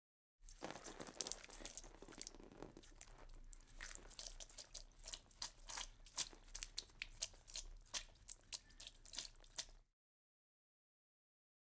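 Horror sound effect of crunching and crackling: a close run of sharp crunches and snaps that grows denser and louder after a few seconds, then cuts off suddenly.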